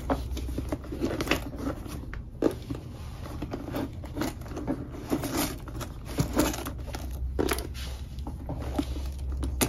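Items being packed by hand into a bucket bag: irregular rustling, crinkling and light knocks as things are pushed and shuffled into its compartments.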